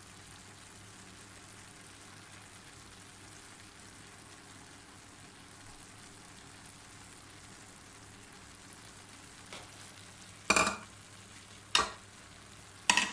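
Faint steady sizzle of zarda sweet rice cooking in oil in a pan on a gas stove, broken by a few sharp knocks in the last three seconds.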